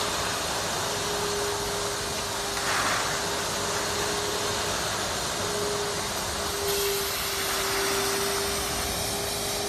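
Large industrial vacuum cleaner running steadily: a constant rush of air over an even motor hum, swelling slightly a couple of times.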